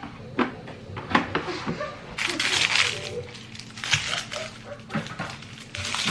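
Household clatter: a series of sharp knocks and clicks, with a rustling, scraping stretch about two seconds in.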